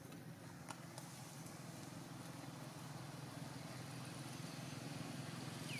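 A distant engine running steadily, its low hum slowly growing louder, with a faint click about a second in and a short falling chirp at the very end.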